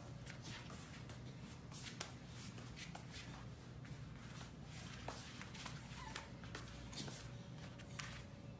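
Golden retriever puppy wriggling and rolling on a wooden floor: faint, irregular clicks and scuffs of its claws and fur against the boards, over a low steady hum.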